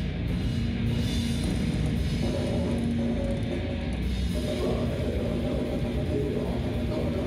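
Live death/grind band playing, with distorted electric guitars and a drum kit.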